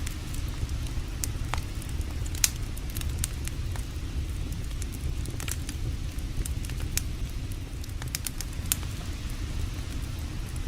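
Campfire crackling, with irregular sharp pops scattered through, over a steady low rumble.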